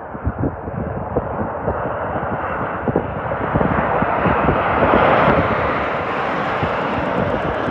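Airbus A350-900 airliner's Rolls-Royce Trent XWB jet engines on landing. The noise swells to a peak about five seconds in, then eases to a steady rush.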